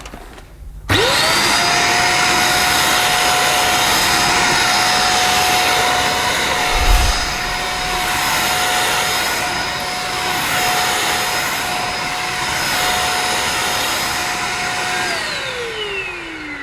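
EGL 600-watt handheld mains vacuum cleaner switched on, its motor quickly rising to a steady whine over the rush of suction and running evenly, with one brief low bump partway through. Near the end it is switched off and the whine falls away as the motor spins down.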